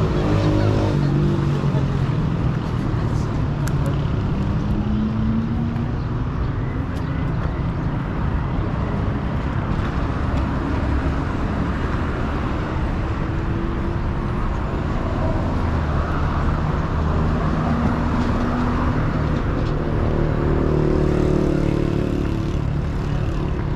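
Street ambience: road traffic running past steadily, with passers-by talking.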